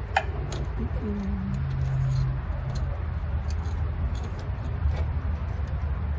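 Small clicks and taps of hands working wires and hardware in a breaker panel over a steady low rumble. About a second in, a person hums a few low, steady notes.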